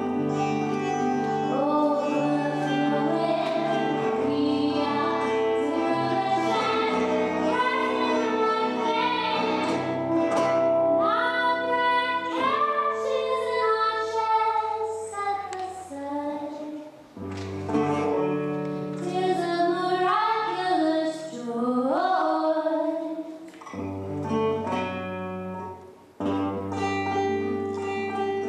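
A woman singing to her own acoustic guitar accompaniment; in places her voice slides up and down in pitch over held chords, and twice the guitar thins out for a few seconds.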